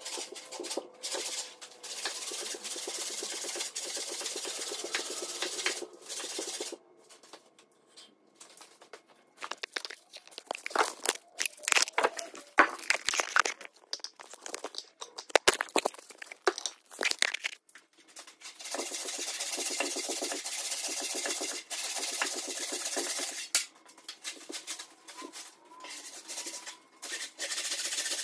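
Old hand saw ripping lengthwise down through a log, a steady run of rasping strokes through the wood. Partway through the sawing stops for a while, with scattered sharp cracks and knocks, then the rhythmic sawing starts again.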